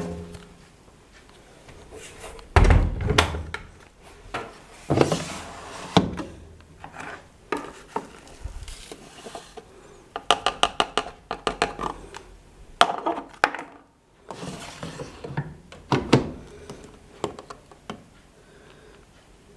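Irregular knocks, clicks and clatter of hard objects being handled, with a quick run of clicks about ten seconds in.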